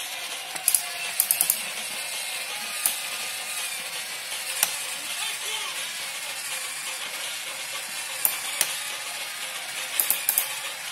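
Battery toy power drill whirring steadily as it turns a plastic bolt on a toy workbench. Sharp plastic clicks come now and then, singly or in quick clusters of three or four.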